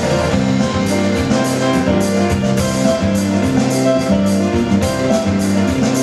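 Band music with guitar and drums, the drums keeping a steady beat under sustained chords.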